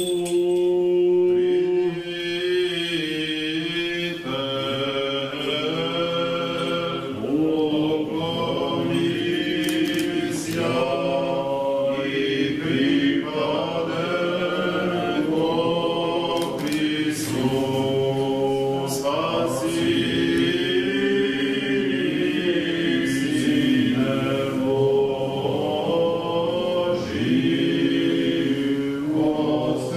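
A church choir chanting an Orthodox liturgical hymn unaccompanied, several voices together holding long notes and moving from note to note without a break.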